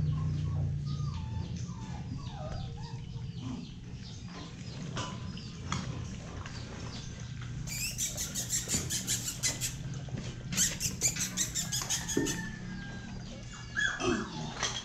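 Month-old Belgian Malinois puppies whimpering and squeaking as they jostle at feeding, with a rapid run of wet clicking smacks, about ten a second, in the middle of the stretch and more whimpers near the end.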